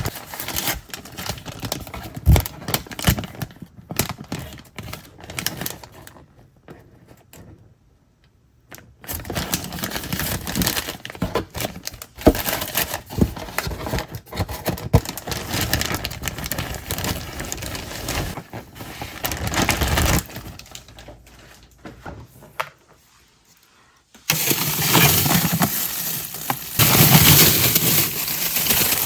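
A run of sharp clicks, knocks and clatter from handling things in the kitchen, with two short lulls, then denser, more continuous noise from about twenty-four seconds in.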